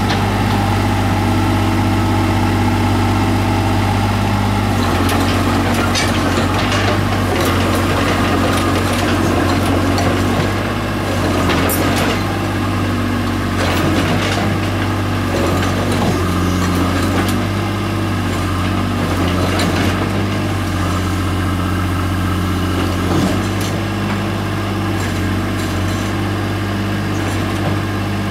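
Komatsu PC50UU mini excavator's diesel engine running steadily as the machine travels on its crawler tracks, with scattered sharp clanks from the undercarriage.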